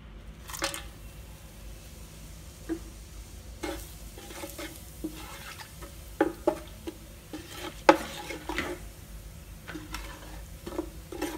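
Whole spices and ground masala frying in hot oil with a faint sizzle, while a spoon stirs them and knocks against the pan in scattered short clacks, the loudest about eight seconds in.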